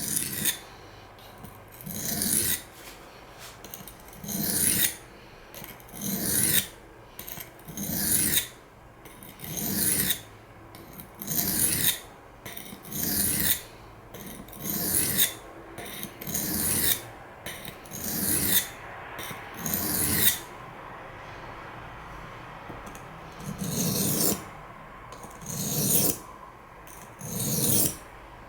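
A CPM S30V steel knife blade (Spyderco Paramilitary II) being stroked across a sharpening stone with a gritty scraping sound. There are about fifteen steady strokes, one every second and a half to two seconds, with a brief pause about two-thirds of the way through.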